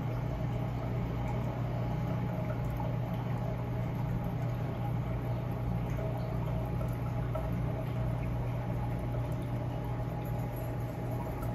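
Steady low machinery hum, unchanging, with a faint hiss over it.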